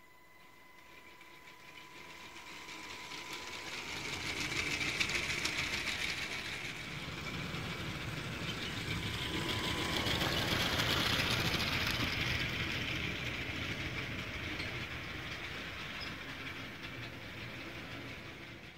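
Motorized building-brick model steam locomotive and its wagons running on plastic track: the small electric motor whirring and the plastic wheels clicking over the track joints. It grows louder as the train comes near and passes close, loudest around the middle, then fades slowly.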